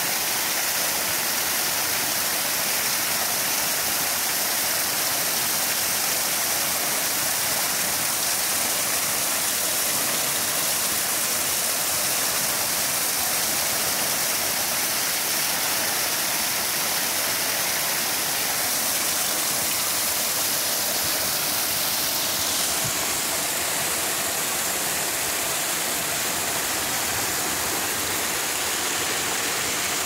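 Waterfall pouring steadily: an even, loud rush of falling water.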